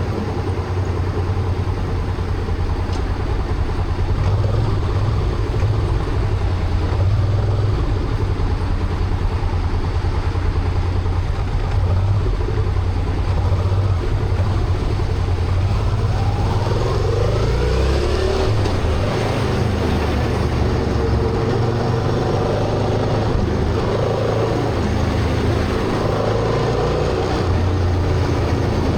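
Honda Transalp motorcycle riding at a steady pace: a constant low engine hum under road and wind noise. About halfway through, a whine rises in pitch over a few seconds.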